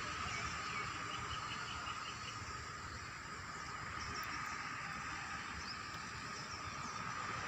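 Bird calls over steady background hiss: a quick run of about seven short chirps a little after a second in, then a few scattered high chirps. A steady high hum runs underneath.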